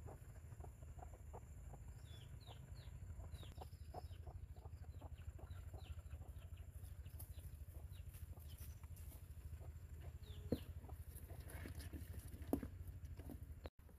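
Chicks cheeping in many short, high, falling peeps. Near the end there are two sharp knocks as a woven bamboo basket is set down on the ground.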